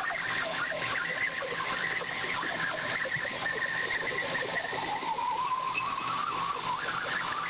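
Cosen C-520NC horizontal bandsaw blade cutting through solid 15-5 PH stainless steel: a steady cutting noise with a wavering high-pitched whine that shifts lower about five seconds in.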